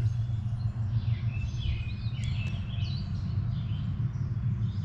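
Songbirds chirping and calling in the woods over a steady low rumble.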